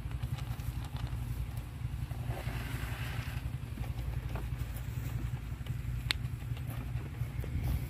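Wind buffeting the phone microphone, a steady low rumble, with scattered light clicks and knocks and a brief soft rustle about two to three seconds in.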